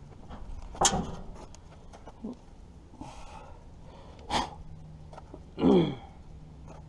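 A man coughing from a lingering illness: a sharp cough about a second in, another about four seconds in, and a louder one near the end whose voiced tail falls in pitch.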